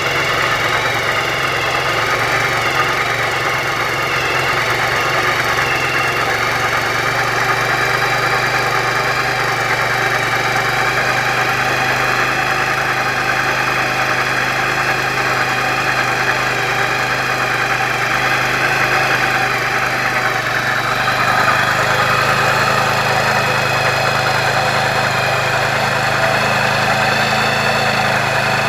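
Single-cylinder four-stroke GY6 scooter engine idling steadily on a very cold morning, a little fast: the owner puts the raised idle down to the automatic choke sticking on. It gets slightly louder in the last few seconds.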